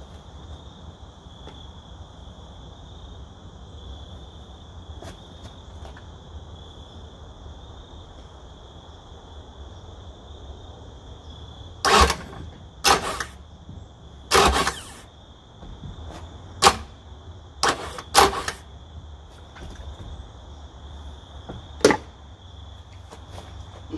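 Yamaha F150 outboard's electric starter bumped over in about seven short bursts from about halfway in, each turning the flywheel briefly so the drive-shaft splines line up with the lower unit. Crickets drone steadily underneath.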